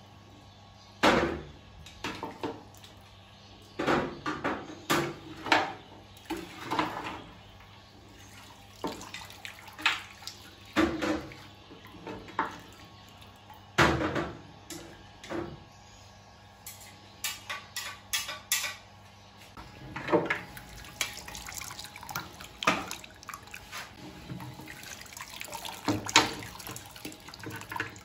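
Metal utensils and dishes clinking and knocking irregularly, some strikes ringing briefly, with liquid splashing.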